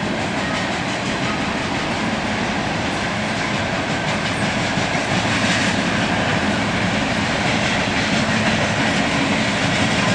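A freight train of CSX coal hopper cars rolls past, making a steady noise of steel wheels running on the rails.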